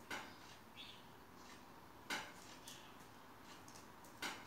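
Light taps and clicks on a hard tile floor as a kitten pounces on a dangling toy: three sharper taps about two seconds apart, with fainter ticks between them.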